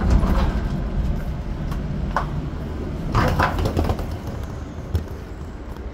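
Rolling suitcase wheels rumbling over a concrete platform, with a few knocks and clicks along the way.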